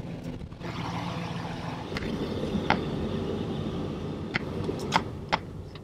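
A van's engine running, heard from inside the cab as a steady hum, with a few sharp clicks and knocks scattered through it.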